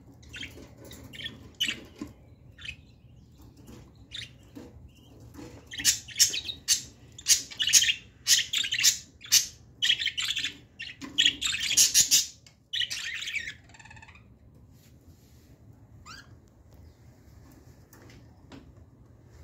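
Budgerigars chirping and chattering in a cage: scattered calls at first, then a dense, loud run of quick chirps from about six to thirteen seconds in, thinning to a few faint calls near the end.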